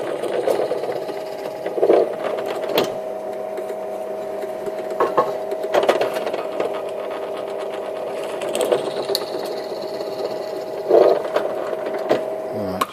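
Bench drill press running with a steady motor hum while a 3 mm bit is fed down into a small wooden block. The sound swells briefly each time the bit cuts, several times over.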